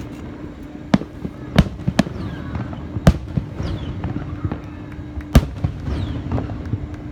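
Fireworks going off: a run of sharp bangs from bursting aerial shells, some a second or so apart and some several seconds apart, the loudest about three and five seconds in. Faint falling whistles sound between the bangs.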